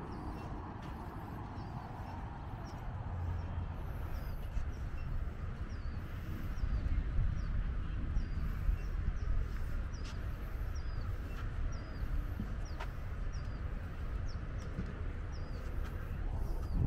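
Outdoor ambience: a steady low rumble with a faint, high, short chirp repeating regularly about every two-thirds of a second.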